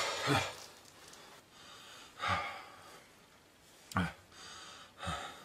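A man gasping and breathing hard: about five ragged, noisy breaths spread over several seconds, the first the loudest. It is the sound of a struggle for breath.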